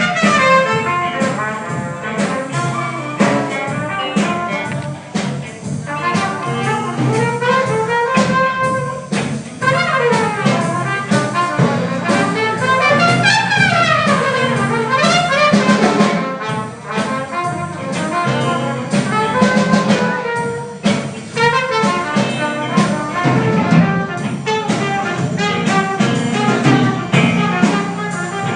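Instrumental passage of a song, with horns playing over a drum beat and runs that sweep up and down about halfway through.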